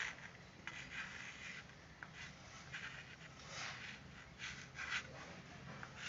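Chalk scratching on a small blackboard in a series of short, irregular strokes as a word is written out.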